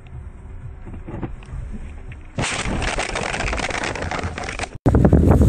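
A car crash heard from a dashboard camera: low road noise, then about two and a half seconds in a sudden loud impact followed by a couple of seconds of crunching, rattling noise. Near the end it gives way to heavy wind buffeting on a microphone.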